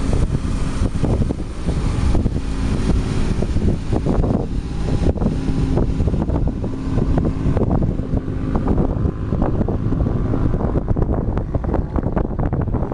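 Wind buffeting the microphone over the steady low drone of a tour boat's engine.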